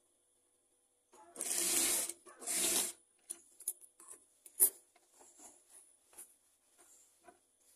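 Two short bursts of rustling as shirt fabric is rubbed and shifted on a sewing machine table, then light clicks and a sharp snip of scissors cutting the thread about four and a half seconds in.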